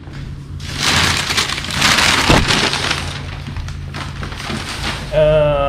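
Crumpled kraft packing paper rustling and crackling as it is pulled and handled out of a cardboard box, loudest in the first half.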